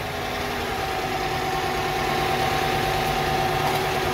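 A vehicle's engine idling steadily, just after starting, heard from underneath the vehicle near the transmission, with a steady hum. A lower hum joins about a second in.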